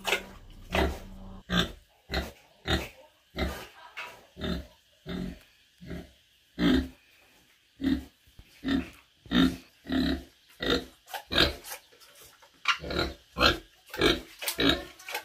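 A pig grunting over and over in short separate grunts, about one or two a second, with a brief pause about two-thirds of the way through.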